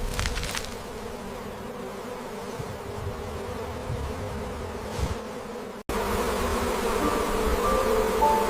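A swarm of honey bees buzzing steadily, with a few faint clicks. About six seconds in it cuts off abruptly, and music with held notes follows.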